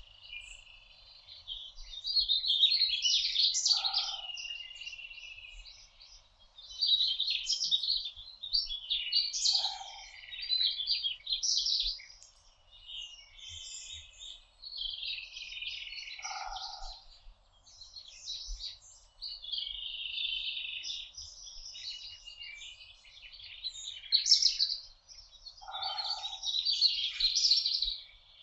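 A chorus of several songbirds singing and chirping together in spring woodland, with overlapping high trills and twitters. Among them a lower two-note call sounds four times.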